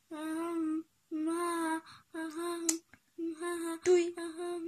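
A voice singing short held notes on one steady pitch, about five phrases in a row with brief gaps, the last one a sung "doei" (goodbye). A sharp click sounds about four seconds in.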